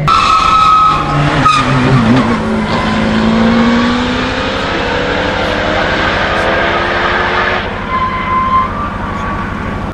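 Mercedes-AMG GT Track Series' 4.0-litre twin-turbo V8 launching hard from a standstill with wheelspin, tyres screeching as the engine revs climb steadily while the car accelerates away. The tyre noise stops near the end and the engine fades into the distance.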